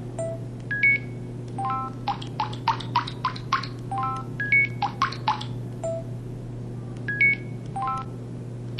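StarTAC 2004 SE mobile phone playing one of its built-in electronic sound effects: a quick tune of short beeping notes at changing pitches, the phrase starting over after about six seconds, over a steady low hum.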